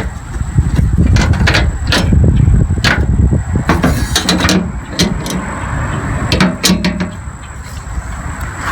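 Irregular sharp clicks and knocks of hand work at a Jeep's wheel well, where the plastic fender flare retainers are being taken off, over a steady low rumble.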